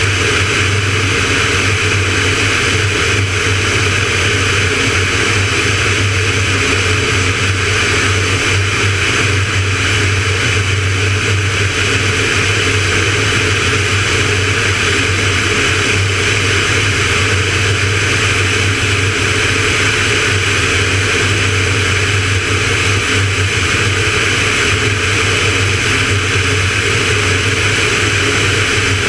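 Van's RV-9A light aircraft's piston engine and propeller droning steadily in flight, a constant low hum with a hiss of airflow over it.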